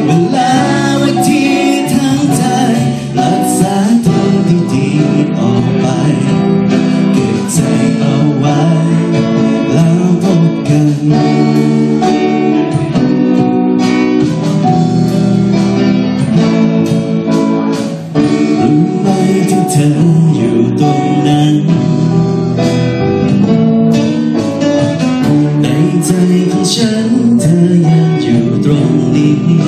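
A live band playing an amplified pop-rock song: electric guitar and drum kit, with a male singer's voice.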